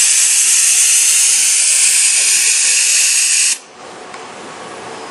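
Steady loud hiss of air through a pneumatic vacuum gripper on a Denso robot arm while it holds a small block. The hiss cuts off abruptly about three and a half seconds in, as the block is released onto the pallet. A much quieter mechanical background follows.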